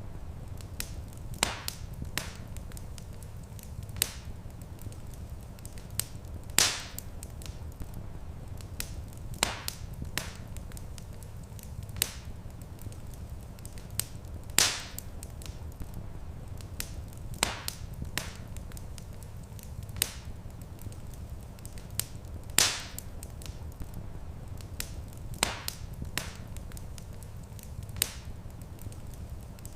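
Wood fire crackling in a fireplace, with sharp pops every second or two, a few of them louder, over a steady low rumble.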